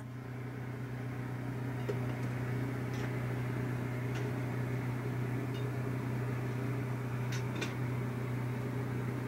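Steady low mechanical hum with an even rushing noise, like a fan or appliance running in a small room, broken only by a few faint clicks.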